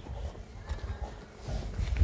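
Scattered light knocks and clinks of loose stones and a shovel on rocky ground as rubble is cleared along a stone wall, with a low rumble that grows about one and a half seconds in.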